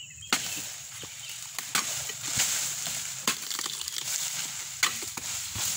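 Pole-mounted harvesting chisel chopping into the fibrous frond bases of a low oil palm: four hard strikes, about one every one and a half seconds, with crunching and rustling of fibre and fronds between them.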